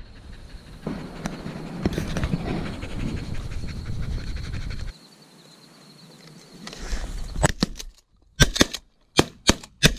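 A dog panting close by. Near the end comes a quick run of shotgun shots from several hunters, the loudest sounds here.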